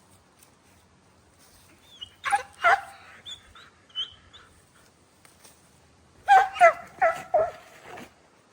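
Dog whimpering and yipping in two short bouts of high, wavering cries: one about two seconds in, and a louder one from about six to eight seconds in.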